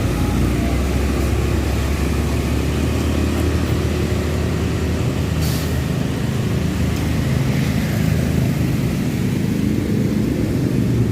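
Transjakarta bus engine and road traffic rumbling steadily, with a short air hiss about five and a half seconds in.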